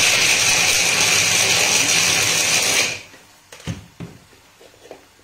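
Electric mini chopper running, grinding mixed nuts, then switched off about three seconds in; two light knocks follow.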